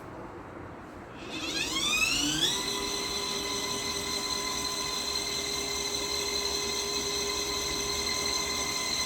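The small electric motor of a mini portable washing machine starting up about a second in, its hum rising in pitch, then running steadily at one pitch.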